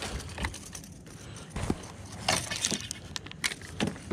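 Irregular light clicks, clinks and knocks of fishing tackle being handled on a kayak as a hooked fish is brought in on the line.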